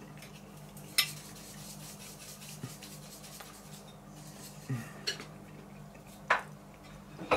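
A metal fork clinking and scraping on a plate: about five short, sharp clinks scattered through, the first about a second in, over a steady low hum.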